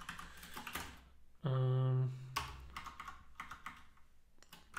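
Typing on a computer keyboard: quick runs of key clicks. About a second and a half in, a short steady hum, the loudest sound here, breaks into the typing before the clicks resume.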